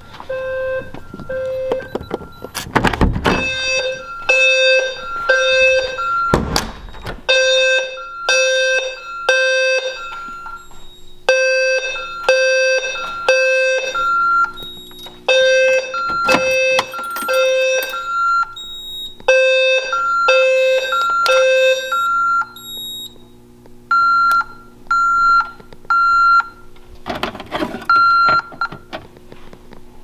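System Sensor P2WL-LF low-frequency fire alarm sounder sounding its buzzing low tone in the temporal-3 evacuation pattern: three pulses, then a pause, over and over, with a higher beep in the same rhythm. The low tone stops about three-quarters of the way through, leaving only the higher beeps in threes and a steady hum. A couple of door thumps come in the first few seconds.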